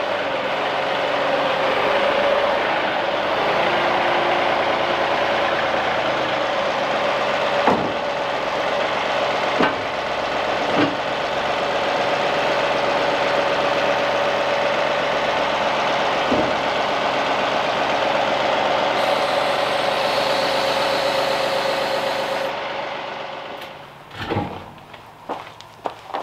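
John Deere 2038R compact tractor's three-cylinder diesel running steadily with a steady whine over it, broken by a few sharp knocks. Near the end the engine sound falls away and several metal clanks follow.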